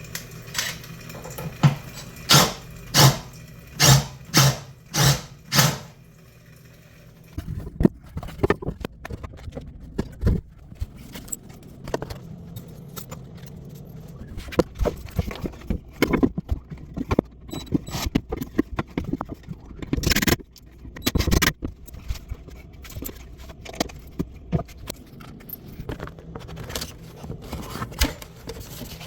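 Metal hand tools and fittings clinking and knocking: a quick run of about eight sharp knocks, roughly two a second, over the first six seconds, then irregular clicks and clatter with a louder burst of knocks around two thirds of the way through.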